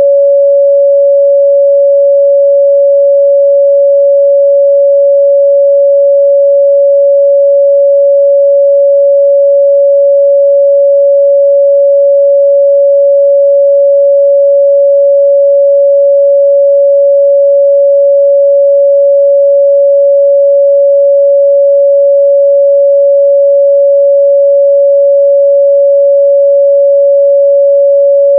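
Pure 562 Hz sine-wave test tone, one steady unwavering pitch held at a constant loud level with no harmonics or other sound.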